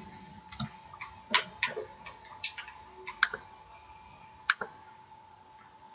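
Computer mouse clicks: several short, irregularly spaced clicks over a faint steady hum.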